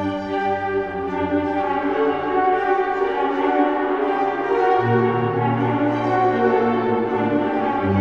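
Ghostly orchestral music: slow, sustained chords held over low bass notes, the low notes moving to a new pitch about five seconds in.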